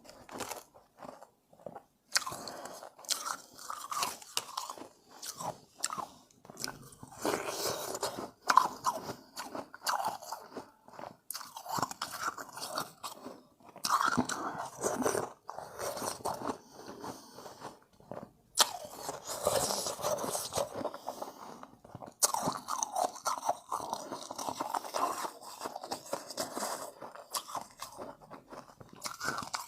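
A person biting and chewing refrozen shave ice, close up: dense crisp crunching in repeated bouts of chewing with short pauses between them.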